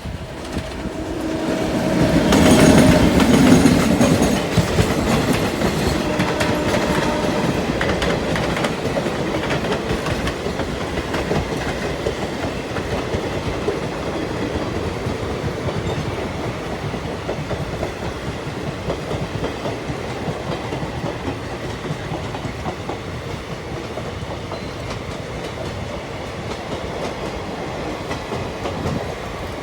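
Passenger train wheels clattering over rail joints with a continuous rumble. The noise surges loudest, with a brief ringing tone, about two to four seconds in, then slowly eases off.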